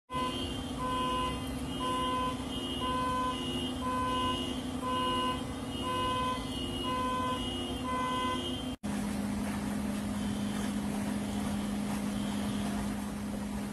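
Flooded car's alarm sounding: an electronic beep repeating about once a second over a steady low tone. After an abrupt break partway through, the beeps are gone and only a steady low tone remains.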